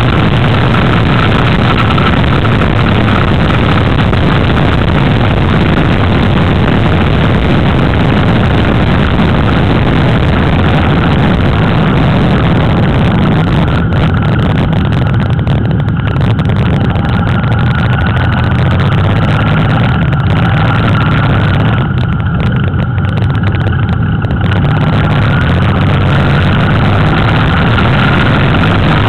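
Motorcycle riding at steady road speed: the engine's steady drone mixed with heavy wind rush on the microphone.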